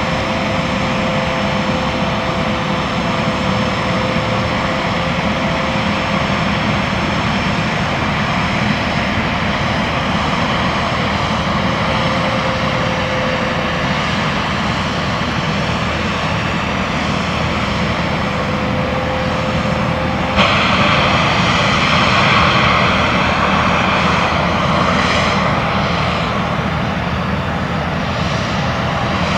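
Boeing 767 jet airliner's engines running with a steady whine and rush. About twenty seconds in, the sound jumps suddenly louder and brighter.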